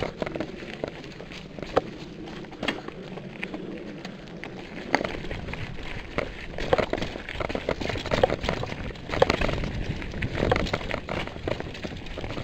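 Full-suspension mountain bike ridden along a dirt singletrack trail: tyres crunching over the ground with irregular clacks and rattles from the bike.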